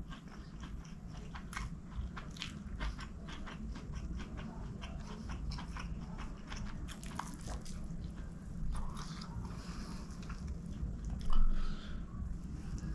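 Close-miked eating sounds: chewing and wet mouth clicks and smacks from a mouthful of rice and chicken curry eaten by hand, in a quick irregular string. A louder short sound comes about eleven seconds in.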